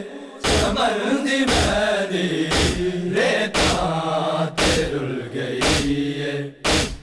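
Men's voices chanting a Punjabi noha, a Shia lament, held on long pitched lines, over sharp unison strikes about once a second: the hand-on-chest beating of matam keeping the noha's beat.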